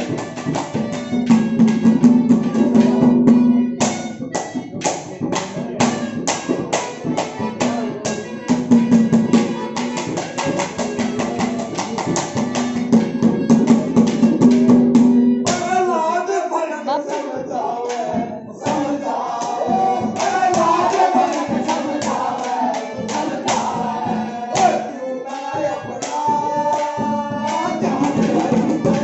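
Haryanvi ragni music: a fast percussion rhythm over a held low tone, with a wavering melody line coming in about halfway.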